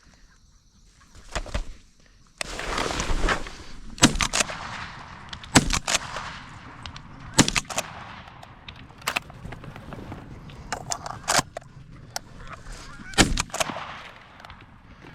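A flock of Canada geese honking close by, with loud sharp honks every second or so over a continuous chorus of calling that starts about two seconds in.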